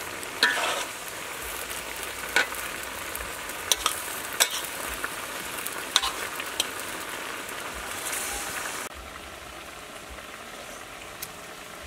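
Vegetables and pork offal sizzling in a hot wok as they are stir-fried, with a metal ladle and spatula knocking and scraping against the pan several times. The sizzle drops to a quieter steady hiss about nine seconds in.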